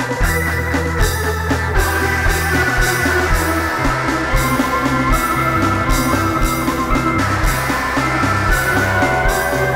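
Improvised instrumental rock jam on drum kit, electric guitar and keyboard: a steady kick-drum beat about every three-quarters of a second with cymbals, under a held bass line and sustained keyboard chords.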